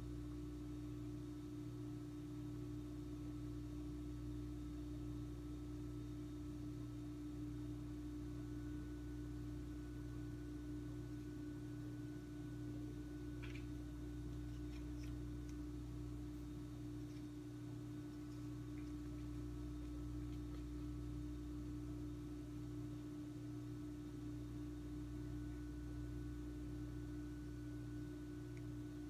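A steady hum: one constant mid-low tone with a deeper drone beneath it, unchanging throughout. A few faint soft clicks come about halfway through.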